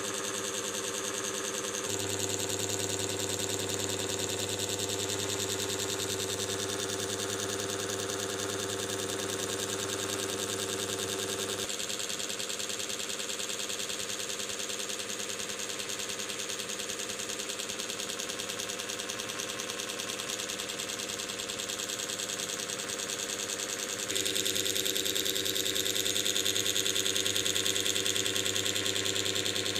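A steady mechanical hum made of several even tones with a fast fine flutter. It shifts in tone abruptly a couple of seconds in, again near the middle, and grows a little louder for the last few seconds.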